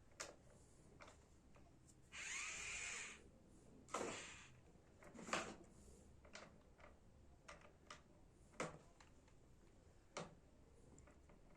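Faint scattered knocks and clicks, with a short rushing noise about two seconds in that lasts about a second.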